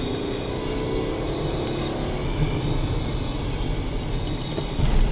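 Car engine and tyre-on-road noise heard from inside a police car's cabin while it drives. It is steady, swelling a little near the end.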